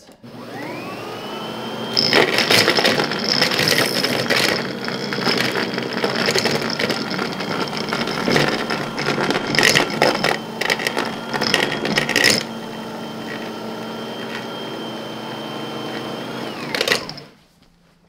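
Lindhaus LS38 commercial vacuum sweeper switched on, its motor whining up to speed, then rattling and clattering for about ten seconds as it sucks up large debris. It then runs steadily with no debris and winds down near the end when switched off.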